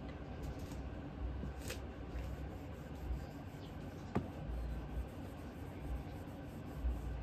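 Quiet handling noise as a cloth is rubbed over a shotgun, with two light clicks, one about a second and a half in and one a little past the middle, over a low steady rumble.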